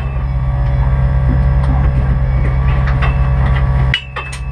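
BMW M3 race car's engine idling with a steady low drone inside the cabin, with knocks and rustling from the drivers swapping in the seat. The drone briefly drops out about four seconds in, then picks up again.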